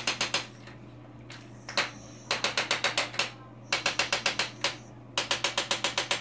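Electric chiropractic adjusting instrument tapping on a dog's back. It fires in quick trains of sharp clicks, about nine a second, each train lasting about a second with short pauses between, after a few single clicks at the start. A low steady hum runs underneath.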